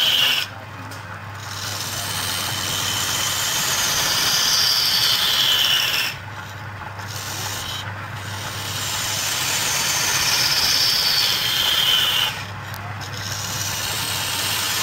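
Flat chisel scraping a spinning wooden cylinder on a wood lathe: a steady, loud scraping hiss of the cut over a low motor hum. It comes in three passes, each growing louder, and near the end of each a high whine slides down in pitch.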